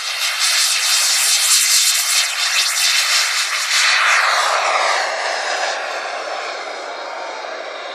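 Kerosene turbine engine of a radio-controlled CT-114 Tutor model jet at full power on its takeoff run and climb-out. It makes a loud jet rush that is strongest about three seconds in, then fades with a falling pitch as the model flies away.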